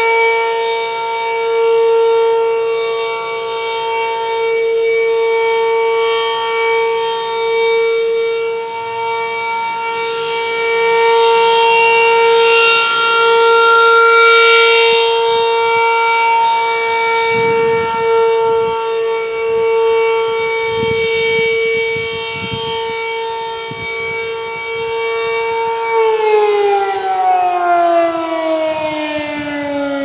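Sentry Defender rotating outdoor warning siren sounding a steady tone, its loudness swelling and fading as the horn turns. Near the end it begins to wind down, the pitch gliding steadily lower.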